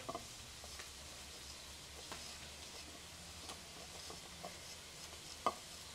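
Faint steady sizzling from a hot comal over a wood fire, with a few light ticks and one sharper click about five and a half seconds in.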